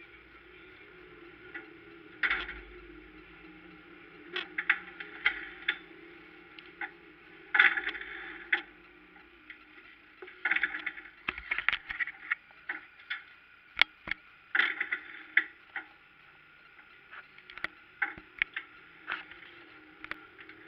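Irregular clicks, taps and knocks close to the microphone, some sharp and loud, with small clusters around 2, 7.5, 10.5 to 12 and 14.5 seconds in. This is handling noise from someone reaching into the parked race car's cockpit beside the camera. Under it runs a faint steady hum.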